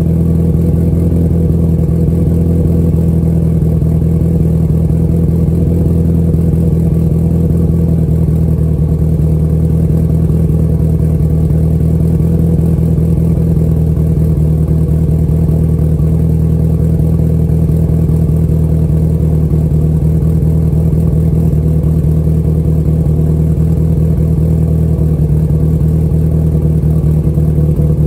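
Mitsubishi Evo X GSR's turbocharged 2.0-litre four-cylinder engine, fitted with GSC S2 camshafts and running on ethanol, idling steadily during its cold-start warm-up, heard at the exhaust tip.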